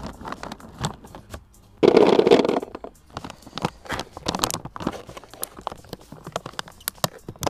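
Hard boilies (carp baits) rattle as they pour into a plastic bucket, a dense burst about two seconds in. Then a clear plastic bag crinkles and crackles as it is handled and folded shut.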